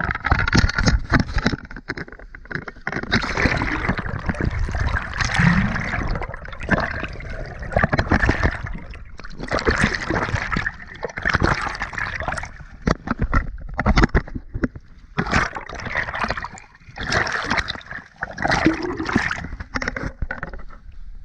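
Sea water sloshing and gurgling around a camera held at the surface beside a moving boat, in loud, irregular surges with short lulls.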